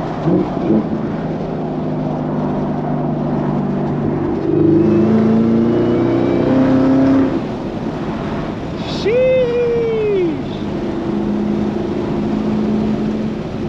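Supercharged 6.2-litre V8 of a Chevrolet Camaro ZL1 1LE running at a steady cruise, then accelerating harder from about four seconds in for a few seconds, rising in pitch and loudness before easing off. A short tone that rises and then falls cuts in a little past the middle.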